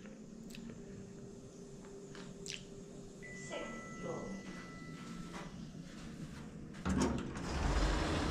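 Lift arrival chime: two steady tones, a higher then a lower, about three seconds in. Near the end the lift's sliding doors open.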